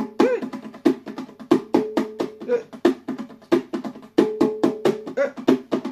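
A pair of bongos played by hand in a quick, steady rhythm of sharp strikes, several a second, some ringing briefly with a pitched tone.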